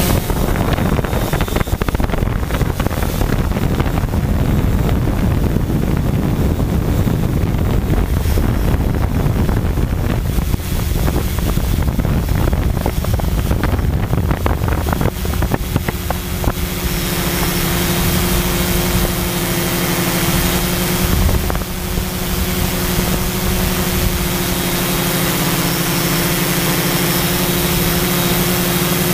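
Quadcopter drone's motors and propellers humming, heard through its onboard camera microphone. For about the first half, wind buffets the microphone heavily and nearly covers the hum; after that a steady hum comes through clearly.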